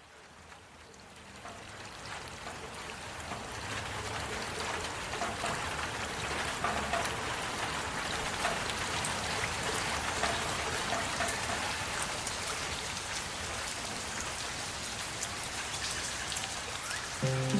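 Heavy rain falling steadily, a dense patter of drops that fades in over the first few seconds and then holds level.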